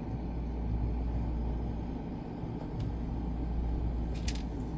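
A steady low rumble with a faint click about four seconds in.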